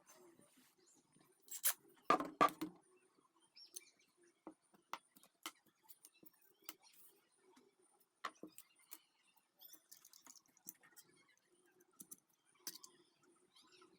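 Scattered light clicks and taps of small hard objects being handled, with a louder cluster of knocks about two seconds in.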